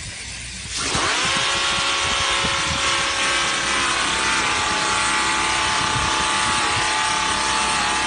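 A machine's motor comes in about a second in and runs steadily with a whine of several steady tones over a rough noise.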